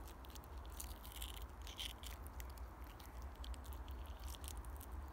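Faint soft clicks and wet tearing of raw partridge breast meat as fingers work it off the breastbone.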